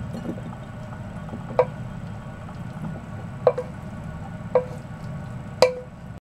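Wooden spatula and frying pan knocking as a stir-fry is scraped out onto a plate: four sharp knocks, each with a brief ring, the last the loudest, over a low steady background noise. The sound cuts off suddenly at the end.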